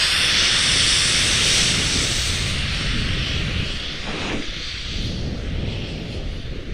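Wind rushing over an action camera's microphone while skiing, with skis hissing and scraping over packed and choppy snow. The high hiss is strongest in the first half and eases off after about three seconds, leaving mostly low wind rumble.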